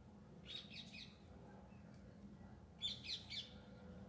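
Faint chirping of a small bird: two short bursts of several quick high chirps, about half a second in and again about three seconds in, over a low steady hum.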